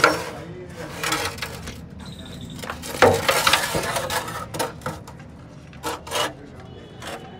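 Metal clanking and scraping as a sheet-metal oil drain tray is shifted into place under a car's oil pan for an oil change, with a run of sharp knocks, the loudest about three seconds in.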